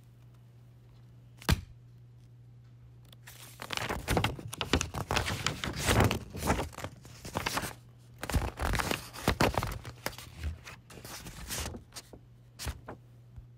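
Paper rustling and crinkling in irregular bursts for several seconds as a folder and notebook are handled and pages are flipped. A sharp knock comes shortly before, another near the end, and a steady low hum runs underneath.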